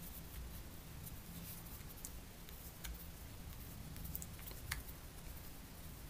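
Small precision screwdriver turning tiny screws out of the plastic base of a PowerUp 4.0 control unit: faint scattered clicks and scrapes, the sharpest about three-quarters of the way through, over a low steady hum.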